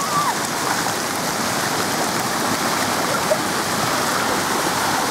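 Steady rush of pouring, splashing water.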